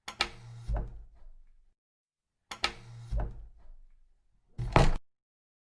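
A sound effect played twice, each time a sharp click followed by a low thump, then a shorter, louder knock-like burst near the end.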